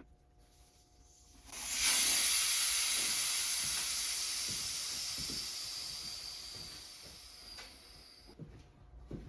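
Air hissing out of a golf cart tire as it deflates, fading steadily for about six seconds before it stops, with a faint whistle that slowly drops in pitch.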